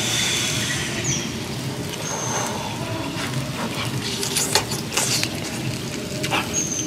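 A person eating grilled mouse meat by hand: chewing and lip smacking, with short wet clicks as the meat is torn and bitten, most of them past the middle.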